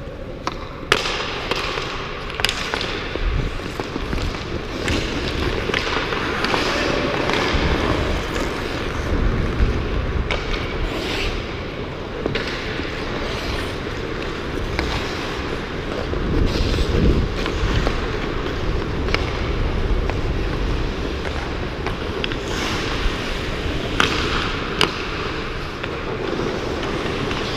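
Ice hockey skating and puck play: skate blades scraping the ice, with sharp cracks of sticks striking pucks and pucks hitting the boards scattered throughout. A low wind rumble on the microphone comes and goes while skating.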